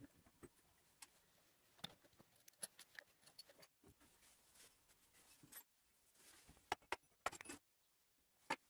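Faint, scattered metallic clicks and clinks of electric-motor parts being handled during reassembly: the rotor, on new bearings, going into the finned motor housing and the end cover being fitted.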